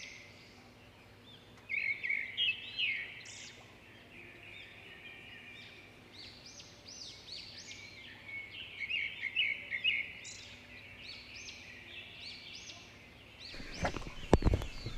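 Wild birds calling, many short chirping notes that rise and fall, clustered in a couple of bursts. A few soft knocks near the end.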